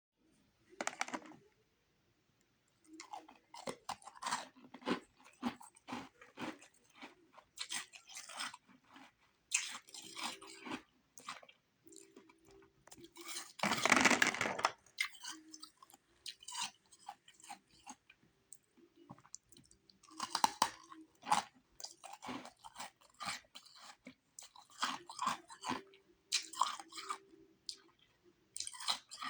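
A person biting and chewing refrozen powdery ice sticks and rings close to the microphone: runs of crisp crunches with short pauses between bites. The loudest, longest crunch comes about halfway through.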